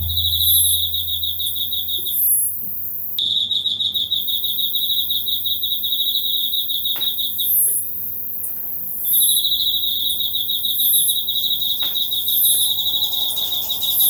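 A chorus of caged singing insects: an Emma field cricket (enma-koorogi) trills in three long stretches, while very high short calls repeat about once a second from katydids, an umaoi (Hexacentrus japonicus) and a hime-gisu.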